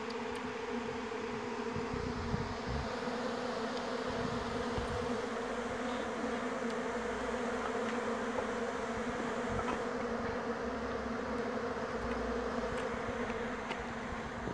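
A colony of honey bees buzzing in a steady, dense hum on an opened wooden hive box.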